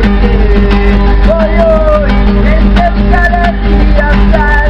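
A man sings, holding and sliding between long notes, over his own strummed acoustic guitar.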